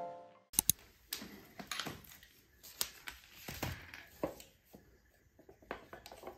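Painting supplies (boxed roller, paint rollers, plastic roller frame) set down one after another on a tiled floor: a string of irregular clicks and knocks of plastic and cardboard, the two sharpest about half a second in.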